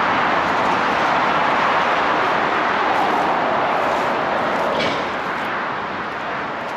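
Steady noise of heavy motorway traffic passing close by, a constant even roar that eases slightly near the end.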